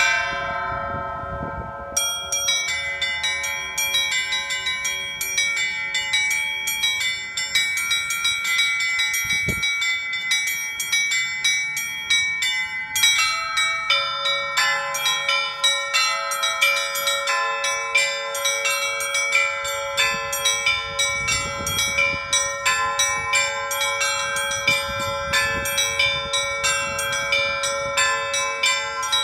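Russian Orthodox church bells rung in a continuous peal: rapid, dense strikes on the small high bells over the lingering hum of larger bells. The small bells drop out for about a second at the start, and the set of ringing tones changes about halfway through.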